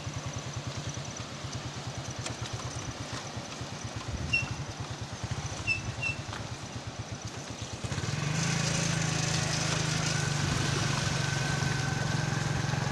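A small engine running with a fast, low, regular pulse, getting louder and steadier about eight seconds in.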